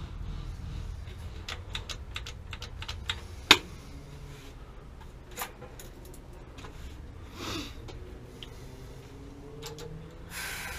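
Irregular light clicks and taps of hands and tools handling metal parts, with one sharp knock about three and a half seconds in, and brief rustles near the middle and the end.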